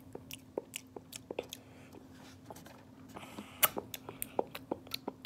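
A child biting and chewing a hard-candy lollipop right at the microphone: irregular sharp crunches and mouth clicks, a few a second, the loudest about three and a half seconds in. A faint steady hum runs underneath.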